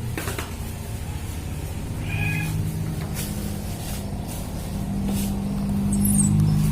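A kitten gives a short, high mew about two seconds in, with a few light clicks. A low steady hum grows louder near the end.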